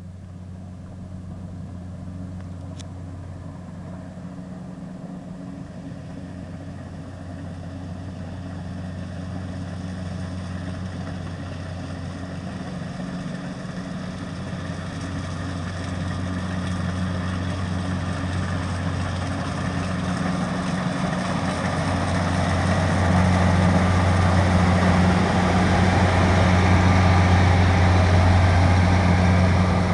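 Kubota DC-60 rice combine harvester's diesel engine running with a steady low hum, growing steadily louder, with more machinery whir building up over the second half.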